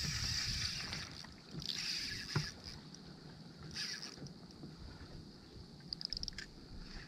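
Wind and water noise around a small inflatable boat at sea, coming in gusts of hiss, with a few faint clicks.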